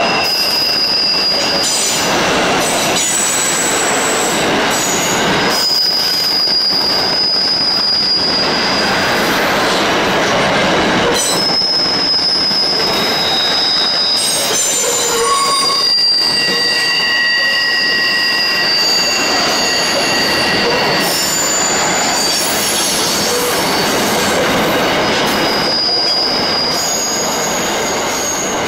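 Aurizon grain train's hopper wagons rolling past, their wheels squealing in several high, thin tones that come and go every few seconds over a steady rumble of wheels on rail.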